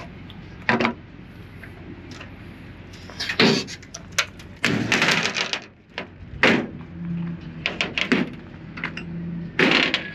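Side compartment doors on a weight-transfer pulling sled being handled and shut: a string of knocks and clunks, with a longer scraping noise about five seconds in, over a faint steady hum.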